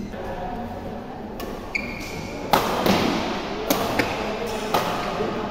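Badminton rally: several sharp cracks of racket strikes on the shuttlecock and players' footfalls on the court floor, the loudest about two and a half seconds in, with a brief shoe squeak just before it.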